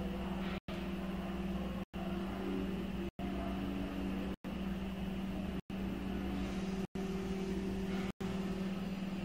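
A steady mechanical hum with a low, even drone, cut by brief dropouts to silence at regular intervals of about a second and a quarter.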